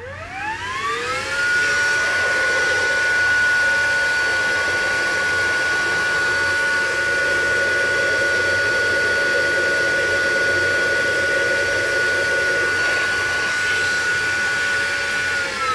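Hoover Evolve Pet cordless vacuum running in its max (carpet) mode with the lower hose removed. The motor spins up with a rising whine over about a second and a half, holds a steady high whine over rushing air, then winds down at the very end.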